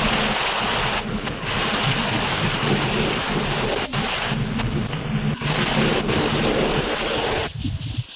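Loud, even rushing noise over the video-call audio, with short dips about a second in and again near the end, where it breaks up.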